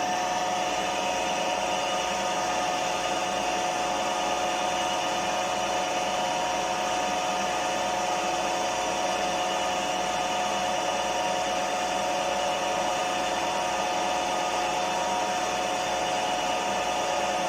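Milling machine running at a steady speed: an even mechanical noise with a steady high whine, while it turns a centre finder to locate the part.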